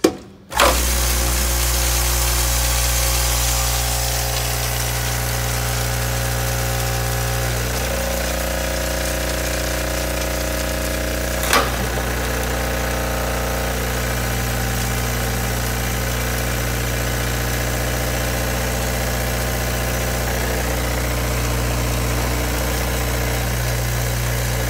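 Vibratory bowl feeder of a rivet counting-and-batching machine switching on with a click and running with a steady electric hum and the rattle of small rivets as it feeds a 1,000-count batch by weight. The hum shifts about 8 seconds in and again about 14 seconds in, and a single sharp click comes near the middle.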